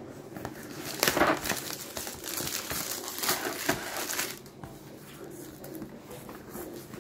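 Packaging of a boxed socket set crinkling and rustling as it is handled and worked at to get it open. The sound is loudest just after a second in and dies down after about four seconds.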